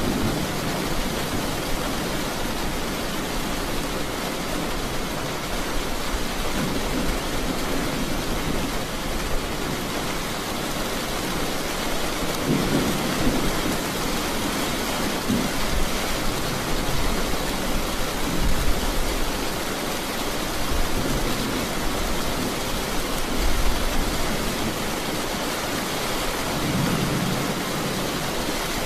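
Steady rain with low rolls of thunder, one swelling about twelve seconds in and another near the end.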